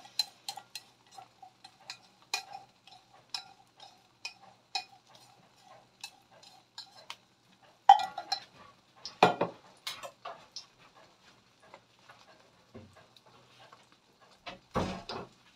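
Egg and chive omelette frying in hot sesame oil in a stainless steel wok: scattered crackles and pops of spitting oil. A few louder bumps come about eight, nine and fifteen seconds in.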